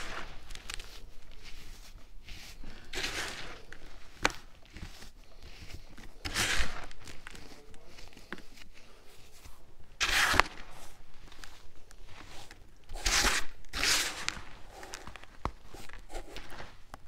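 Baking soda crumble crunching as hands squeeze and press it: a run of crisp crunches with small crackles between, the loudest squeezes about six and ten seconds in and two close together near the end.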